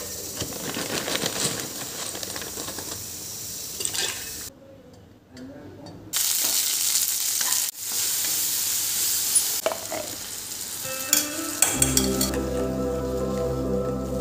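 Steady sizzling hiss with scattered crackles, broken by cuts, with a quieter gap about four and a half seconds in. Soft music with sustained notes comes in near the end.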